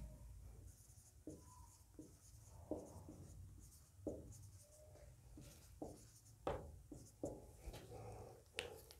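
Marker pen writing on a whiteboard: a series of short, faint pen strokes.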